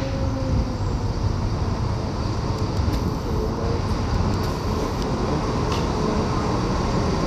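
Class 170 Turbostar diesel multiple unit running slowly into the platform: a steady low rumble from its diesel engines and wheels on the rails.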